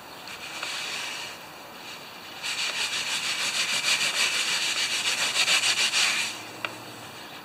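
A cloth rubbed quickly back and forth over a wooden workbench top, wiping up spilled oil. Light scrubbing at first, then a run of fast strokes, about five a second, lasting some four seconds from a couple of seconds in.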